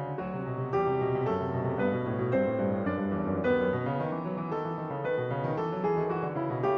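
Background piano music, a steady run of notes struck a few times a second.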